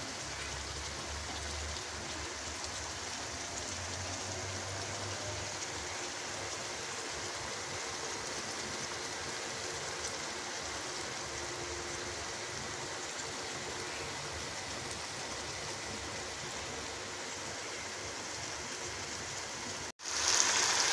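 Potato and onion-tomato masala sizzling in oil in a wok, a steady frying hiss as the masala is fried until the oil separates. Near the end the sound drops out for an instant and comes back louder.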